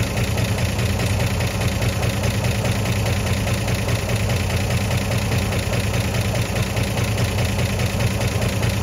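1963 Chevrolet C10 pickup's 235 straight-six idling steadily while it warms up, before the thermostat has opened.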